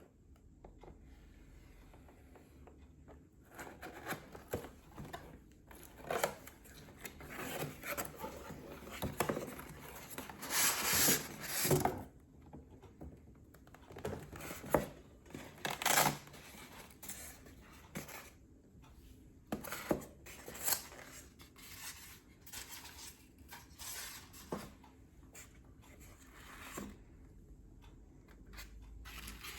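Model-car packaging being unboxed by hand: irregular rustling, tearing and scraping of cardboard and plastic, with small clicks and knocks, the loudest stretches about a third and halfway through.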